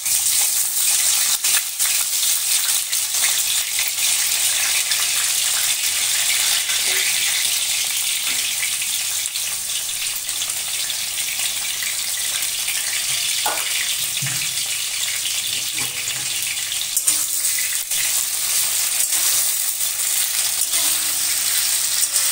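Flat beans and potato slices sizzling in hot oil in a steel kadai after a nigella-seed tempering: a steady frying hiss, loudest at the start as the vegetables go in, with a few light knocks against the pan.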